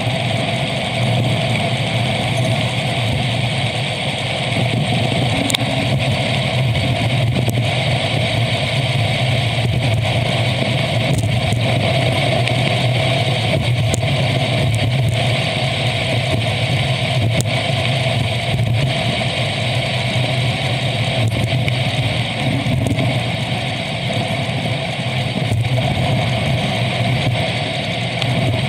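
Continuous, steady road and wind noise of a bicycle ride in traffic, with a few faint clicks.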